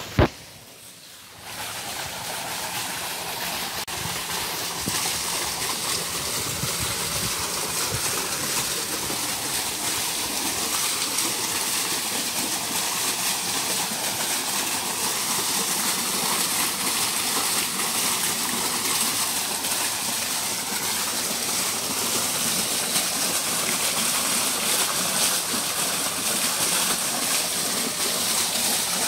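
A garden pond fountain jet splashing steadily back into the water. A brief knock comes right at the start, then a moment's quiet before the splashing sets in.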